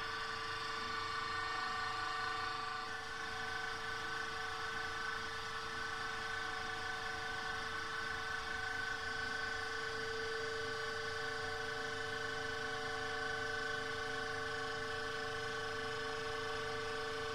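Hydraulic press running with a steady machine whine of several even pitches as the ram slowly bears down and builds load on a tooth.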